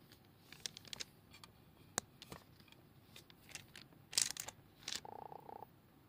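A run of small clicks, taps and light splashes from water and a plastic tub as a hand works in the tub beside a struggling frog. The loudest clicks come about four seconds in, and a short buzz follows near the end.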